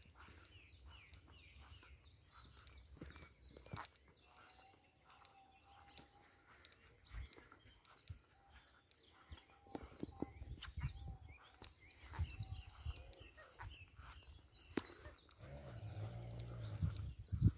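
Songbirds of the dawn chorus singing: scattered chirps and, twice, a fast high trill, over soft footsteps on grass. Near the end a louder, low, drawn-out call.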